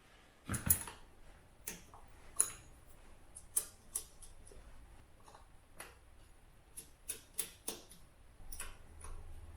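Scattered light clicks and small metallic knocks of hand tools and parts being handled while a new carburettor is fitted to a 125 cc motorcycle.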